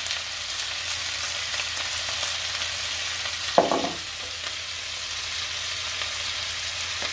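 Mixed seafood sizzling in hot margarine in a frying pan: a steady frying hiss, with one brief louder sound about three and a half seconds in.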